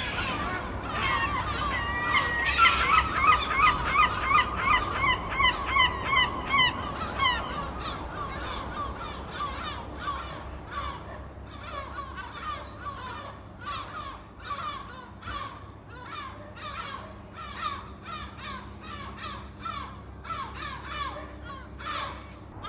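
Seagulls squawking: many overlapping calls in rapid series, loudest and densest in the first several seconds, then continuing a little quieter at a quick, uneven pace.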